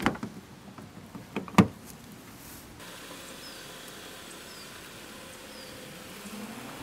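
Honda Civic sedan's door handle pulled and the door latch clicking open, with a sharper click about a second and a half in. After that only a faint steady hiss with a few tiny high chirps.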